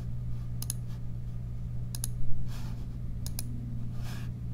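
Three pairs of sharp clicks from working a computer's controls, spaced a little over a second apart, over a steady low electrical hum.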